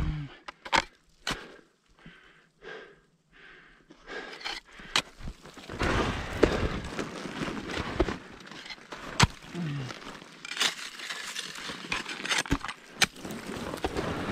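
Ice tools striking into rime ice: a string of sharp, irregularly spaced strikes with crunching and scraping of the ice between them.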